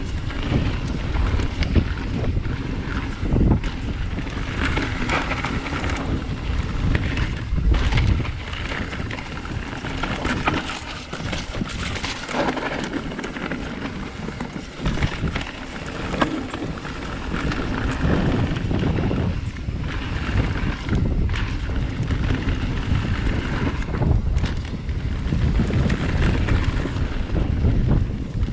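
Mountain bike riding down a dirt trail: wind rushing over the handlebar-mounted camera's microphone and tyres rolling on dirt, with frequent knocks and rattles as the bike goes over bumps.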